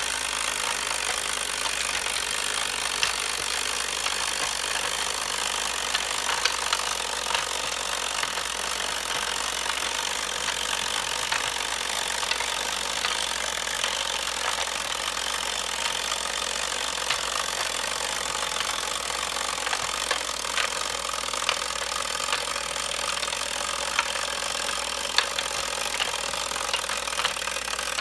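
The timer of a Milton Bradley Numbers Up game running with a steady mechanical buzz during a countdown. Plastic pegs click now and then as they are pushed into the board's holes.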